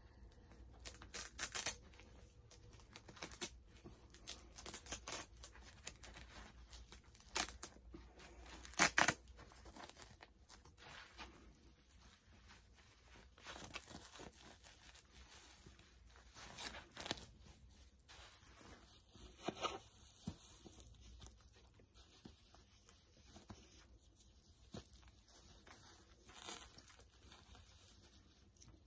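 Velcro on the back of a doll's cloth one-piece outfit being pulled open in a series of short rips, with cloth and plastic rustling between them. The loudest rip comes about nine seconds in.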